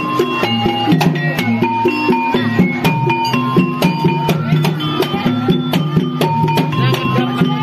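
Javanese jaranan ensemble music: drums keep a busy steady rhythm while struck metal gong-chime notes ring out over it.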